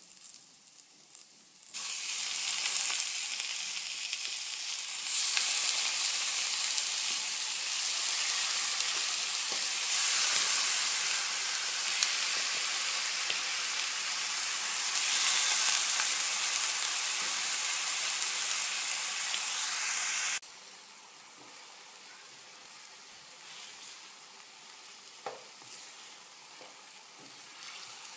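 Raw chicken pieces sizzling loudly in hot oil with browned onions and curry powder in a nonstick frying pan. The sizzle starts about two seconds in and drops suddenly to a much quieter frying hiss about two-thirds of the way through, as the chicken is stirred with a spatula.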